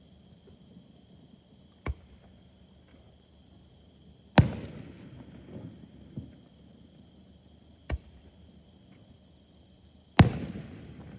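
Fireworks bursting overhead: four sharp bangs a few seconds apart, the second and the last much louder, each of these two followed by a rolling echo.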